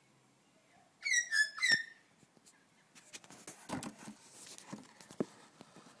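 Australian magpie singing a short burst of about four loud fluting notes, each dropping in pitch, about a second in.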